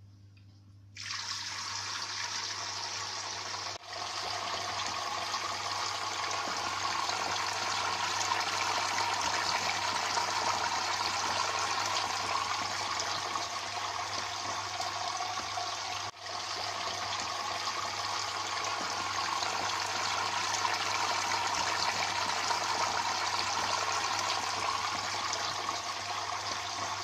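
Water from a homemade broken-vase waterfall fountain trickling and splashing steadily, starting about a second in, over a steady low hum.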